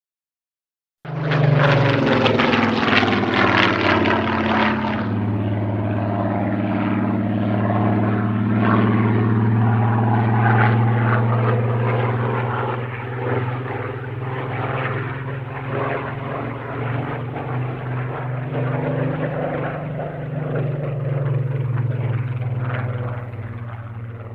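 Propeller aircraft's piston engine running steadily, starting suddenly about a second in, with a deep, even tone and slight shifts in pitch.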